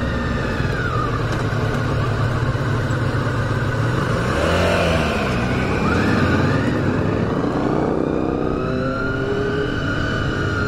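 Honda VFR Interceptor V4 motorcycle engine running under way, its pitch rising and falling about halfway through as the revs change.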